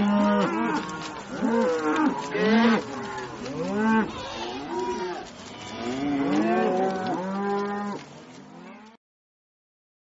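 Several cattle mooing, long calls at different pitches overlapping one another, cutting off suddenly about nine seconds in.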